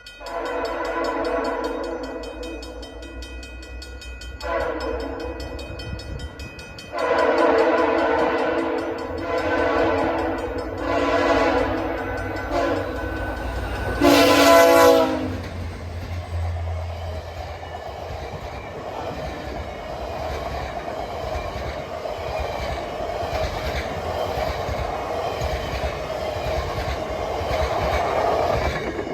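VIA Rail's The Canadian passenger train sounding its horn in about six blasts of a steady multi-note chord, the last and loudest about halfway through. The train then rolls past with a steady rumble and rail noise.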